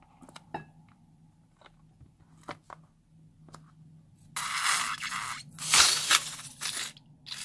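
Scissors cutting through the knotted rubber neck of a filled balloon: a few light handling clicks, then about halfway in three loud, drawn-out cuts in quick succession.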